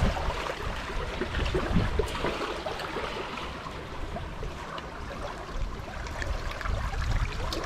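Strong wind buffeting the microphone: a steady rushing noise with a gusting low rumble.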